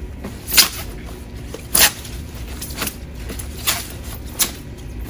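Thin plastic bag crinkling and rustling in several sharp bursts as it is pulled up and off an electric guitar.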